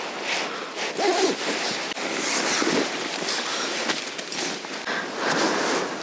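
Nylon down sleeping bag and down jacket rustling as they are handled, with a few sharper scrapes along the way.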